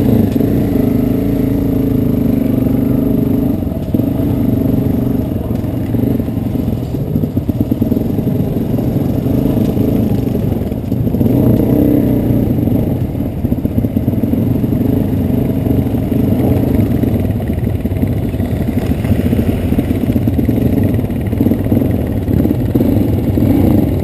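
Adventure motorcycle's engine running as the bike is ridden slowly over a rocky dirt trail, its speed rising and falling with the throttle, with clatter from the rough stony ground.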